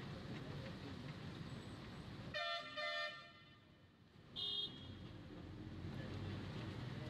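Road traffic from a moving vehicle, a steady low rumble, broken by two quick horn toots about two and a half seconds in and a third, higher-pitched horn toot a second and a half later.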